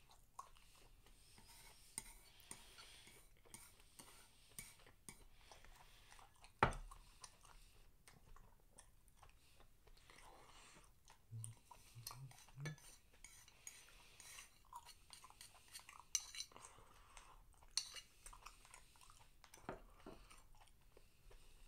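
Quiet eating sounds: chewing, with chopsticks clicking against ceramic bowls and a plate. One louder knock comes about seven seconds in.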